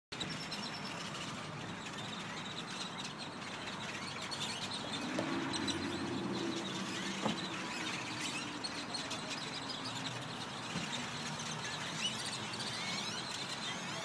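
Dense, continuous chatter of many bird calls from a huge flock of small dark birds swirling overhead. A vehicle's engine hum rises about five seconds in and fades a few seconds later.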